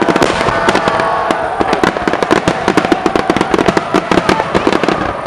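Fireworks display: a dense, continuous barrage of bangs and crackles, many to the second, with no let-up.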